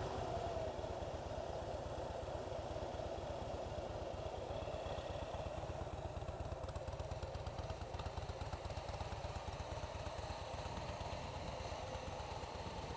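2016 Harley-Davidson Softail Slim's V-twin idling steadily through its stock exhaust, not overly loud.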